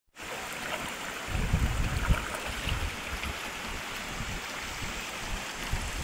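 Muddy river water rushing and swirling around boulders: a steady hiss of flowing water, with a louder low rumble between about one and two seconds in.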